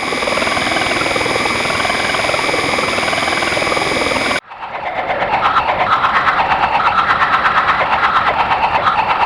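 Electronic drone-noise from a chain of effects pedals: a dense wash with steady high tones and a wavering, warbling layer, which cuts off abruptly about four seconds in and switches to a harsh noise texture pulsing fast and evenly.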